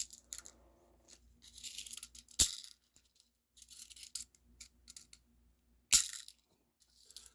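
Handling of a full-metal spring airsoft pistol and its magazine: loose plastic BBs rattling and scraping, with two sharp clicks, one about two and a half seconds in and another near six seconds.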